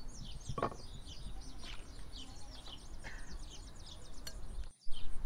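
Birds chirping: a steady run of many short, quick, falling notes, with one knock about half a second in. The sound cuts out briefly near the end.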